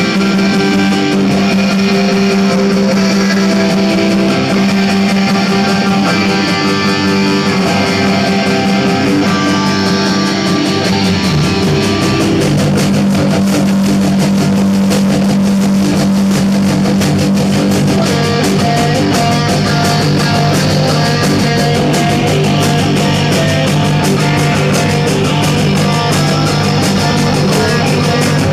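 Rock music led by electric guitar over a held low note; about twelve seconds in the low note drops and the playing becomes denser and busier.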